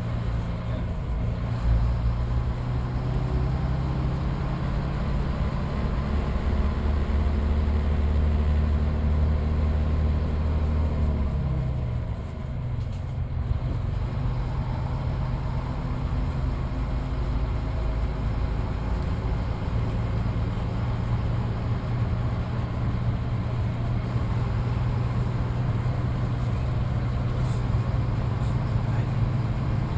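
Diesel engine of a Midland Red BMMO D9 bus running under way, heard from inside the bus. The engine pulls steadily and its pitch climbs a little, then the revs fall away once about eleven seconds in before it settles into a steady pull again.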